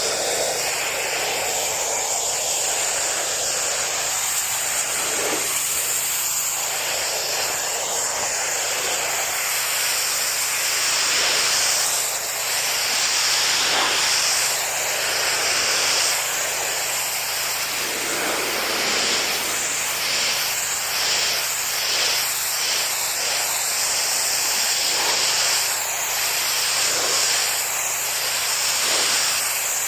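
Pressure washer spraying: a steady hiss of the water jet, with a low, steady machine hum beneath it.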